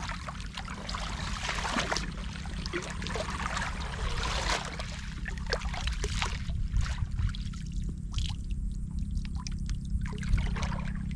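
Shallow, muddy water splashing and trickling, with many short sharp splashes and a steady low rumble underneath.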